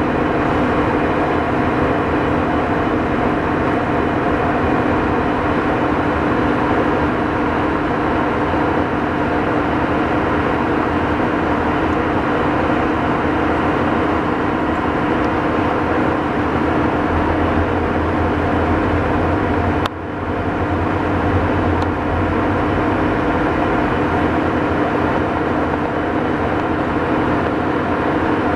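Steady diesel drone from a standing train: the WDP4D diesel locomotive and the LHB generator car's diesel generator sets running at a constant pitch, with no wheel noise. There is a brief drop in level about twenty seconds in.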